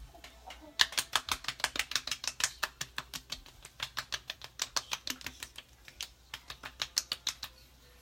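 Hands patting the face, palms slapping skin wet with lotion in quick, even slaps about five a second, with a brief pause about six seconds in. The patting works the lotion into the skin.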